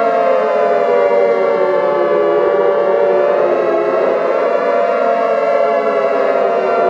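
Warning siren sounding continuously, several overlapping tones slowly sliding down and back up in pitch.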